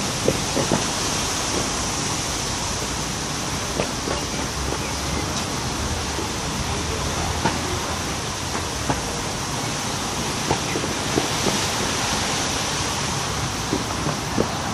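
Steady rushing outdoor background noise with a few faint short ticks scattered through it.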